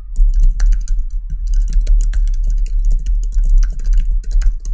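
Rapid typing on a computer keyboard: a quick, irregular stream of keystroke clicks over a steady low rumble, stopping about a second before the end.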